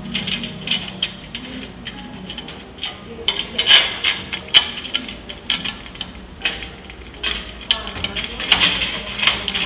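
Irregular light metallic clicks and taps of mounting hardware being fastened to a stainless-steel machine frame, with music underneath.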